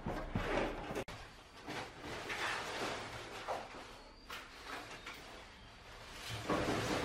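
Paintbrush bristles swishing over a speaker's panel, a few rasping strokes, then after a brief dropout more scraping and sliding handling noises, the loudest near the end.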